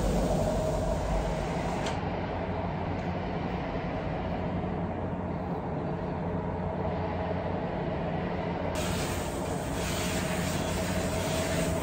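Continuous hum of construction work outside, coming in through an open window: a steady low mechanical drone with a faint steady tone above it.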